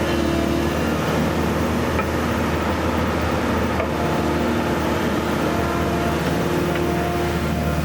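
Kobelco SK160LC excavator's diesel engine running steadily under power, with a constant low drone and a steady hydraulic whine over it.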